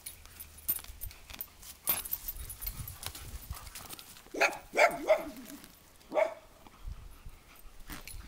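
Two Labrador retrievers tugging at and tearing a dog bed's fabric cover, with scattered rustles and knocks. There are four short play barks: three in quick succession about four and a half seconds in, and one more about a second later.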